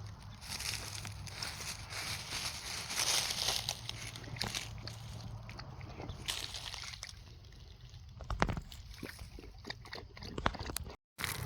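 Water sloshing in a shallow creek, with scattered clicks and crunches that grow more frequent about eight seconds in.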